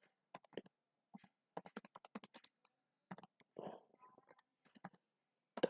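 Computer keyboard being typed on: quiet, quick key clicks in irregular short runs.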